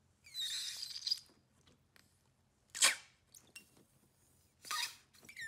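Thick slime being pressed and squeezed by fingers, squishing and crackling in three bursts: a longer one of about a second with some high squeaks, then two short squishes.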